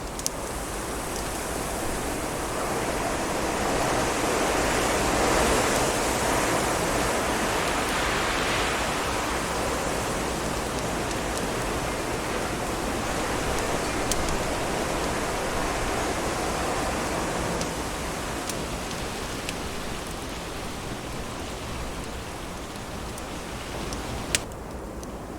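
Wind blowing in a long rushing gust that swells and then eases, with a few sharp crackles of burning wood.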